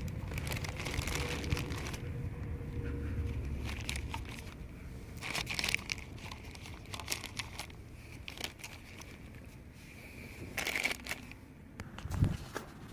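Hands handling plastic pool-valve parts: irregular crinkling, scraping and small clicks as an O-ring is worked onto a new Hayward multiport valve, with a low rumble in the first few seconds and a dull thump near the end.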